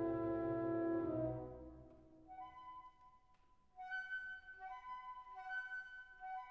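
Background music: a held chord that fades out about two seconds in, then a light melody stepping back and forth between two notes.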